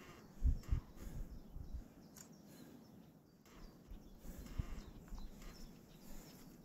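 A few low, dull thumps and knocks: two close together about half a second in, more scattered ones later, over steady outdoor background noise.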